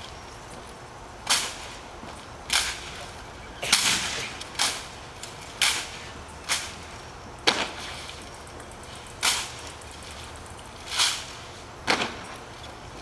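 A drill platoon working bayoneted M1 Garand rifles in unison: about a dozen sharp, crisp slaps and clacks of hands and rifles, with stamps of drill shoes, at uneven intervals.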